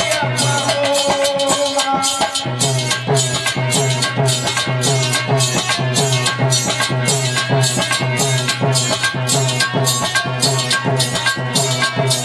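Live Indian devotional folk music: a harmonium playing held notes, with hand drum and jingling rattle-like percussion keeping a steady beat about twice a second. The percussion pauses briefly about two seconds in, then picks up again.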